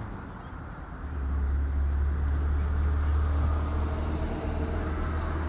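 Low rumble of wind buffeting the microphone, swelling about a second in and holding steady.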